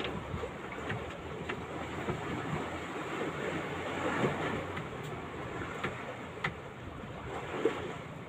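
Steady outdoor background hiss with a few faint light knocks.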